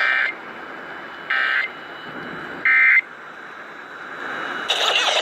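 Emergency Alert System end-of-message data bursts heard over a radio broadcast: three short bursts of warbling two-tone digital data about a second and a third apart, marking the end of the alert, over steady radio hiss. A louder broad hiss comes in near the end.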